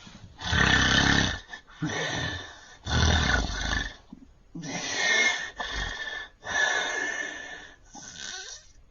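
A man with severe sleep apnea snoring loudly in a rapid run of about seven heavy, rough breaths, each lasting up to about a second.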